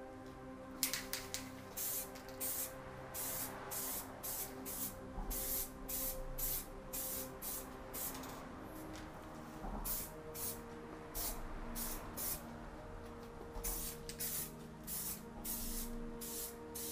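Aerosol spray-paint can spraying paint in many short hissing bursts, one after another, as the paint is touched up.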